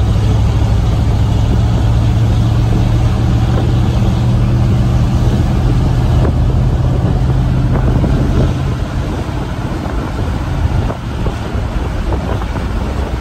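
Pickup truck driving, heard from inside the cab: a steady low engine drone under road and wind noise. About eight and a half seconds in the drone drops away and the sound gets quieter.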